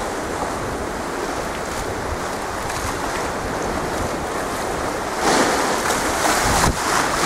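Rough, choppy sea washing, with wind blowing across the microphone. The wind gusts harder from about five seconds in.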